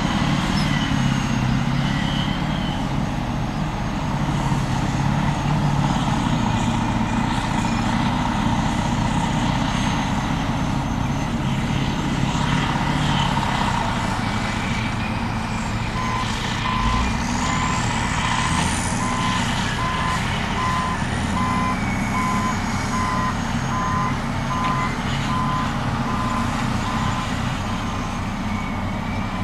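Caterpillar 631E wheel tractor-scraper's diesel engine running steadily under load as the scraper cuts and loads soil. From about halfway through, a reversing alarm beeps in a steady rhythm.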